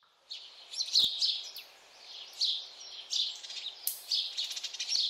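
Songbirds chirping and singing: short, high calls repeating every half second or so, with a couple of rapid trills, over a faint steady hum.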